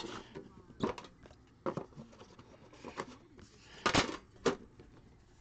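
Trading-card boxes being handled on a tabletop: a handful of short knocks, clicks and light scrapes, the loudest two close together about four seconds in.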